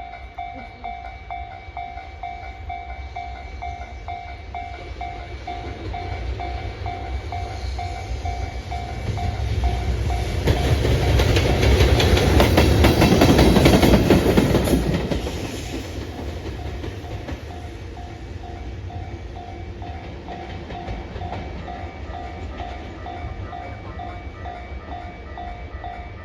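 A Japanese level-crossing alarm ringing steadily at about two strokes a second while a JR Freight EH200 electric locomotive, running alone, passes over the crossing. The train noise builds from about six seconds in and is loudest for five or so seconds around the middle, with wheel clatter on the rails. It then drops away, leaving the crossing bell ringing on.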